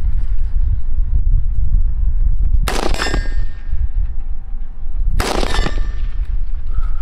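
Two 5.56 M855 rifle rounds striking an AR500 steel target plate about two and a half seconds apart, each a sharp clang followed by a ringing tone that fades over about a second, over a steady low rumble.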